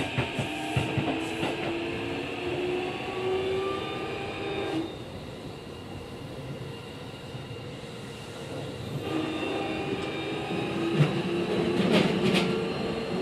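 Keikyu 1500 series electric train, rebuilt with a Mitsubishi VVVF inverter, heard from inside the car. The inverter and traction-motor whine rises in pitch as the train accelerates, then cuts off about five seconds in, leaving wheel and rail rumble while it coasts. The whine returns about nine seconds in, and rail-joint clicks come near the end.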